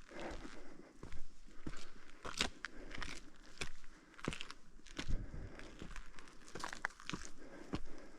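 Hiker's footsteps crunching on a mountain trail at a steady walking pace.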